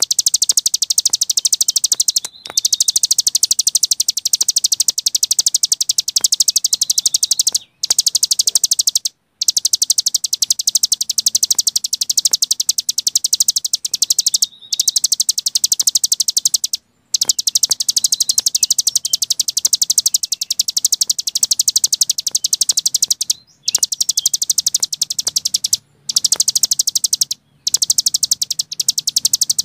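Cici gunung songbird singing a long, very rapid, high-pitched trill ('ngebren'), the continuous song used as masteran for training cage birds. The trill breaks off for a moment several times.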